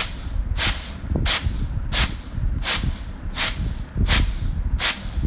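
Pearl millet grains tossed and shaken in a plastic winnowing tray, a rhythmic rattling hiss with one stroke about every 0.7 seconds, as the grain is winnowed clean.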